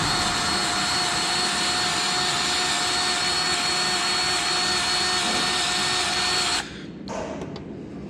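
Milwaukee battery-powered grease gun's motor running with a steady whine, then cutting off suddenly about six and a half seconds in. It is pumping grease from a new tube up through the hose to prime the gun.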